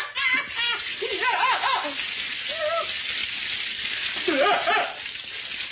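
Water spraying from the pipes with a steady hiss. Over it, a man gives short wordless yelps and whoops three times.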